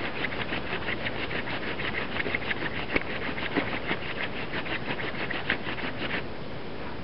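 Short elder spindle of a floating hand drill spun back and forth between the palms on a clematis hearth board: fast, rhythmic wood-on-wood rubbing, about five strokes a second, that stops about six seconds in as drilling ends.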